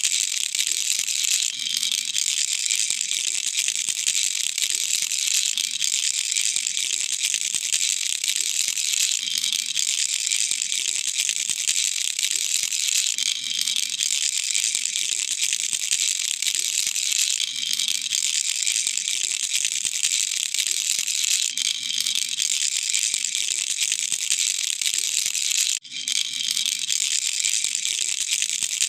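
Baby rattle (khulkhula) shaken without pause, making a dense, fast rattle, with one brief break near the end.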